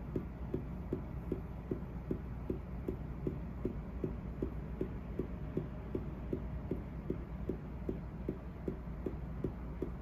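Faint regular ticking, about three ticks a second, over a steady low hum.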